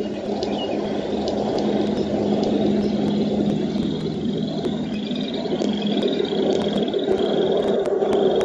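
Spring outdoor chorus, heard as frogs: short high trills, each about half a second long, repeating one after another over a dense, steady lower din.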